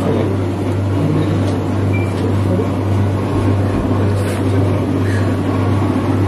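A steady low hum with a rushing noise over it and faint voices in the background.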